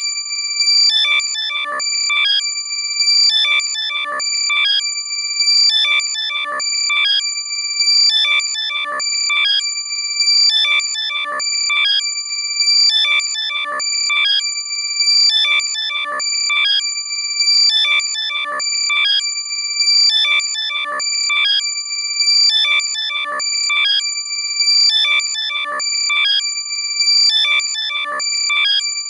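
Loud synthetic alert sound for finding a lost AirPod, ringtone-like: steady high-pitched tones with a burst of rapid warbling chirps repeating about every two seconds.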